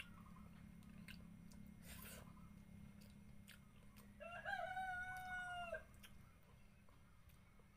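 A rooster crowing once, about four seconds in: a single long call held for about a second and a half, with a wavering start. Faint clicks of eating by hand come before it.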